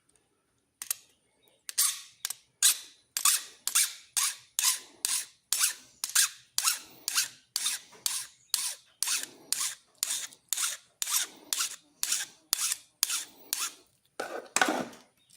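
Hand file stroking back and forth over a cut metal end to flatten it, about two even rasping strokes a second.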